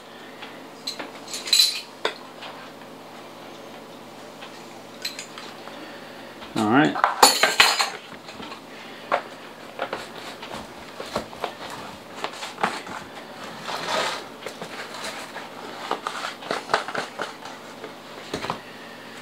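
Metal measuring spoons clinking and scraping while granulated garlic is spooned into a plastic container, with scattered light clicks and knocks of spice jars and lids set down on a wooden counter. A louder burst of handling noise comes about seven seconds in.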